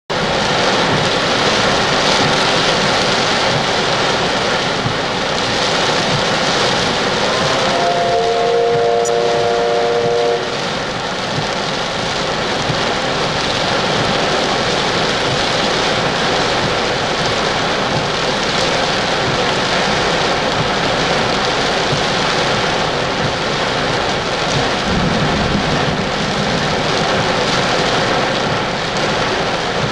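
Heavy rain pouring steadily, with a steam locomotive's whistle sounding a held chord of a few tones for about three seconds, some eight seconds in.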